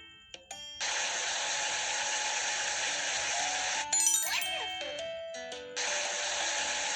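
Background music: short passages of bell-like chimes with sliding tones, twice, between longer stretches of a steady loud hiss that starts and stops abruptly.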